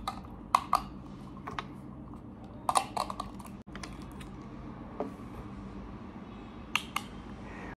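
Scattered plastic clicks and knocks as a plastic phone-holder grip, mini tripod, clip-on microphone and LED light are handled and fitted together, coming in small clusters, over a steady low hum.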